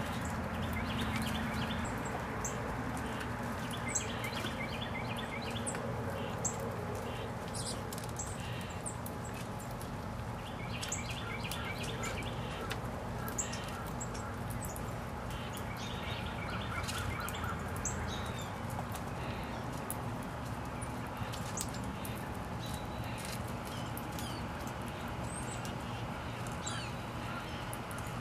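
Small songbirds chirping and trilling: scattered short, high chirps and several runs of quickly repeated notes. Beneath them is a steady low background rumble, with a few short ticks.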